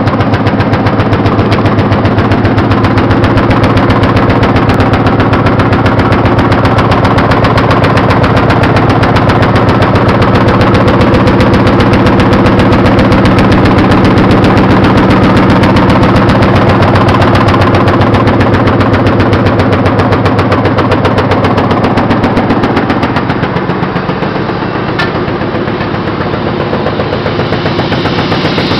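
Industrial Dilo needle-punching machine running, its needle board hammering up and down in a fast, even clatter as the barbed needles punch the fibres into the felt. The clatter eases a little in level for a few seconds near the end.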